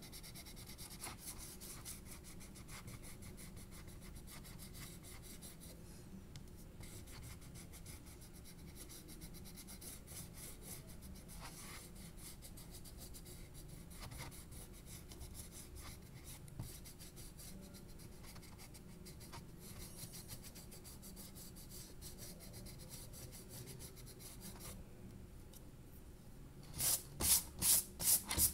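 Paintbrush strokes brushing faintly across textured drawing paper as the pants are coloured in. Near the end come about five louder rubs in quick succession as a hand sweeps over the paper.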